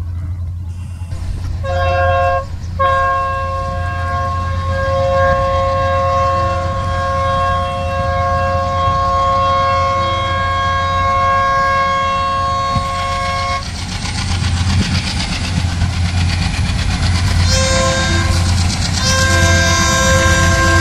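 Locomotive horn of the Humsafar Express sounding one long blast of several tones together, lasting about twelve seconds with a brief break just after it starts, then sounding again in shorter blasts near the end, over the steady rumble of the moving train.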